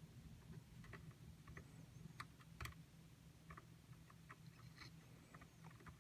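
Faint, irregular small clicks and ticks from hand soldering a joint on a TV power board, over a low steady hum.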